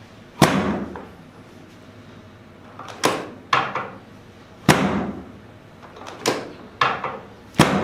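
Chiropractic drop-table sections snapping down under adjustment thrusts: seven sharp clacks, unevenly spaced, each with a short decay.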